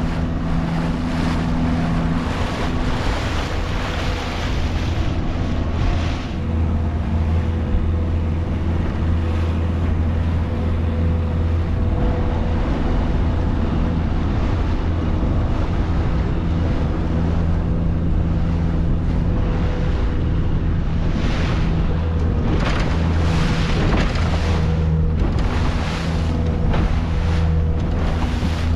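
Motorboat engine running steadily at speed, a constant low hum, with water rushing past the hull and wind on the microphone. Near the end the bow slaps into waves several times, throwing up spray.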